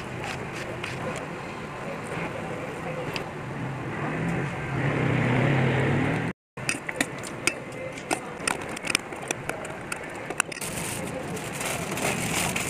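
A spoon stirring raw chicken pieces in a wet marinade in a stainless steel bowl, over a steady low hum. After a brief break come scattered clicks and taps, then crumpled aluminium foil crinkling near the end.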